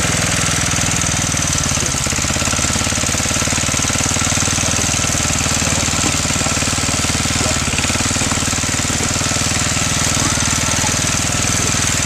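Miner's tractor engine running steadily under way, a loud, rapid, even chugging.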